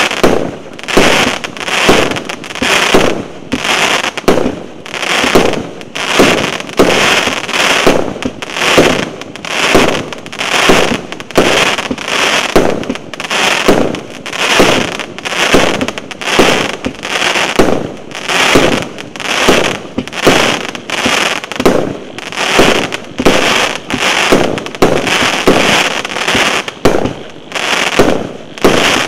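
"Aristokrat" 50-shot fireworks cake firing its shots in steady succession, about one and a half a second, each a sharp report.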